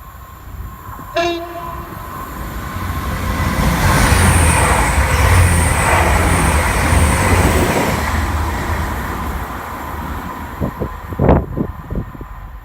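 A train gives a short horn blast about a second in, then passes through at speed, its rumble building to a peak and fading away. A few sharp knocks come near the end.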